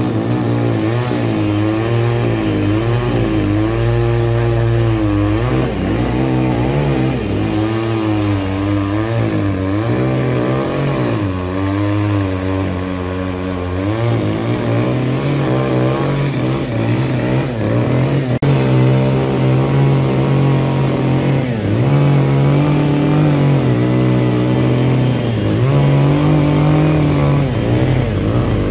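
Two-stroke chainsaw running hard as it cuts through a large tree trunk, its engine pitch rising and falling over and over as the load changes.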